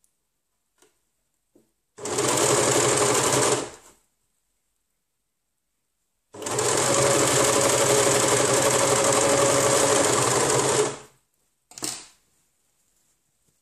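Overlocker (serger) stitching a side seam of a stretch-fabric garment, running in two stretches: about a second and a half, then after a pause about four and a half seconds. A few light clicks come before the runs, and there is a brief half-second run near the end.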